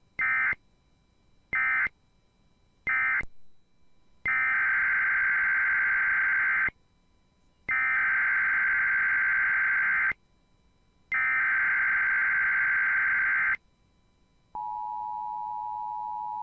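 Emergency Alert System signalling. First come three short end-of-message data bursts, with their shrill warbling digital chirp. Then three longer SAME header data bursts, about 2.5 s each, announce the next alert. About two seconds before the end, the steady two-tone attention signal starts.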